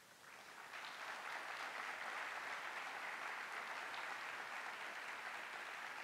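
Audience applause that builds up over about the first second, holds steady, and starts to ease near the end.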